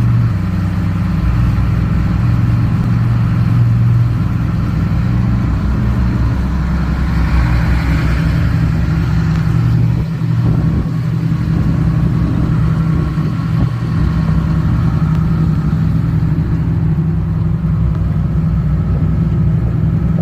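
Car driving along a road, with a steady low engine and road rumble.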